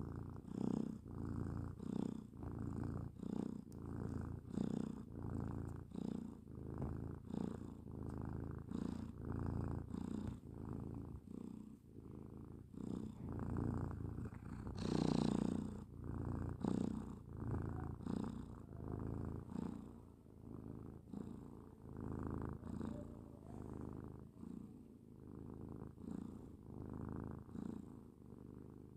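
Cat snoring, a rattling, purr-like sound on each quick, even breath, with one louder, longer breath about halfway through.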